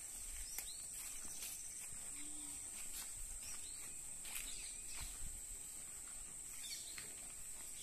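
Rural outdoor ambience: a steady high-pitched insect drone with a few short bird chirps, over irregular soft crunches and rustles of cows tearing and chewing grass.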